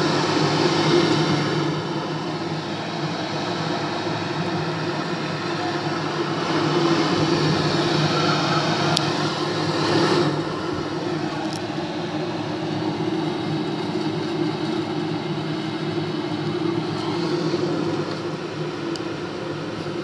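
Steady rushing roar from a film animatic's soundtrack, played through a speaker and picked up in the room; it swells twice before settling.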